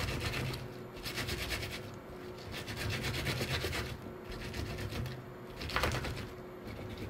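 Okra pods being rolled back and forth under the palms with coarse salt (itazuri): a gritty rubbing that comes in repeated passes of about a second each.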